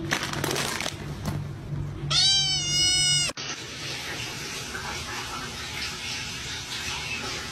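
A cat's single long meow about two seconds in, lasting about a second, high-pitched, dipping slightly and then holding its pitch. It ends in an abrupt cut, followed by a steady hiss.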